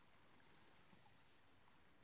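Near silence: faint room hiss, with one small tick about a third of a second in.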